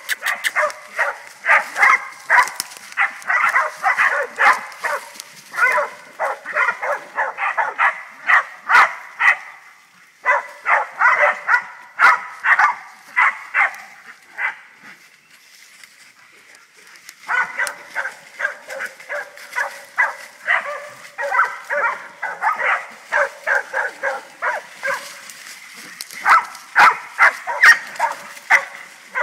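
A young hog dog bay-barking at a wild hog it has stopped: fast, steady barks in long runs, with a break of about three seconds midway.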